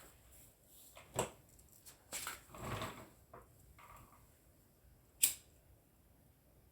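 Handling noises: a few sharp clicks and knocks, the loudest about five seconds in, with a short rushing hiss about two seconds in.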